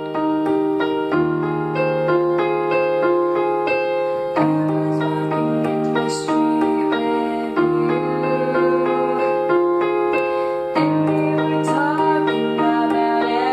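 Portable digital keyboard played with a piano voice: a slow chord progression, each chord struck with a held bass note and changing about every three seconds, with notes moving above it.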